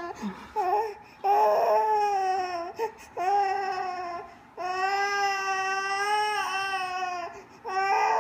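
Baby crying in a tantrum: a few short sobbing catches, then long drawn-out wails, the longest held for nearly three seconds, with brief breaths between them.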